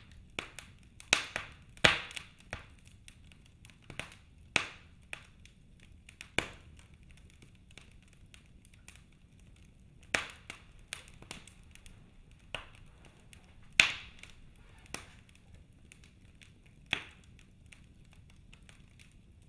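Faint, irregular sharp clicks and pops, roughly one a second, each with a short ring, growing sparser toward the end.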